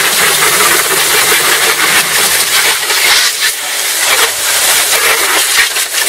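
Water spraying from a garden hose's trigger nozzle against the underside of a raised car hood, rinsing off degreaser: a steady hiss and spatter.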